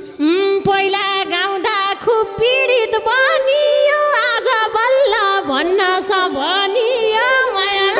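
Nepali dohori folk music: an ornamented, wavering melody with vibrato over a steadily held keyboard chord, with no drumming.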